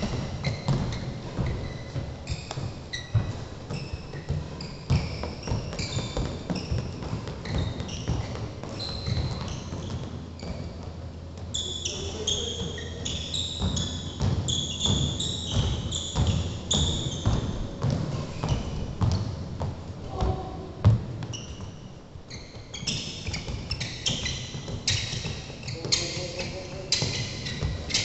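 Feet landing and pushing off on a wooden sports-court floor as players hop over mini hurdles: a steady run of thuds mixed with frequent short, high squeaks of court shoes.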